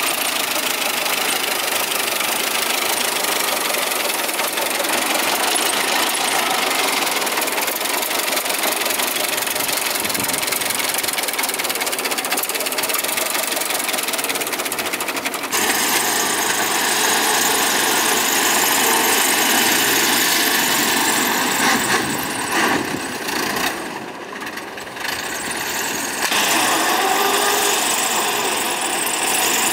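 1923 Dodge Touring's four-cylinder L-head engine idling steadily, heard close up under the open hood. About halfway through, the sound cuts to the car driving, its engine running with a brief drop in level a little past the middle before it picks up again.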